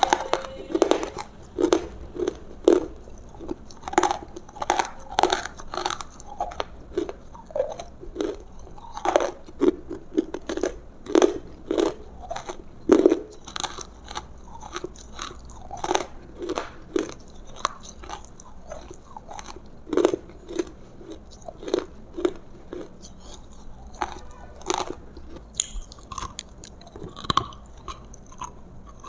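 Close-miked mouth sounds of a person biting and chewing food: irregular crisp crunches and wet chewing, several a second.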